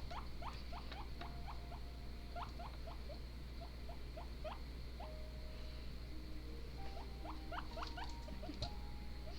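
Guinea pig squeaking softly: quick runs of short rising squeaks, with a few longer level notes mixed in.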